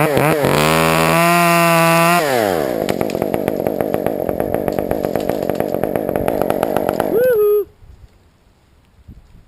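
Two-stroke chainsaw revved up and held at high speed, then let back down to a steady idle. It shuts off suddenly about seven and a half seconds in.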